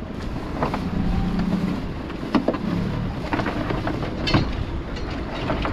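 Small boat's outboard motor running steadily under wind and water noise, with a few sharp knocks and clatters as the gill net runs out of its bin over the boat's side.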